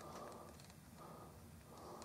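Faint, quick, rhythmic breathing close to the microphone, a soft puff about every three-quarters of a second, with a few faint clicks.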